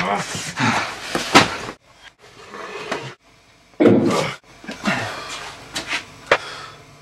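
A person's wordless vocal sounds and heavy breathing, coming in bursts, with a brief silence about three seconds in.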